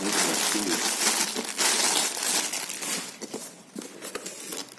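Packaging crinkling and rustling as items are unwrapped by hand: a dense rustle for about three seconds, then thinning to scattered crackles and taps.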